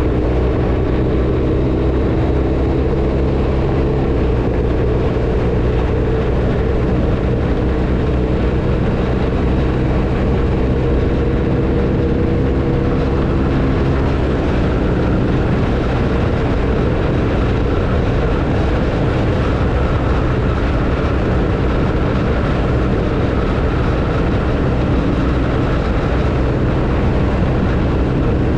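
BMW R1250RT motorcycle's boxer-twin engine running steadily at road speed under wind and road noise, its note shifting slightly about four seconds in and again midway.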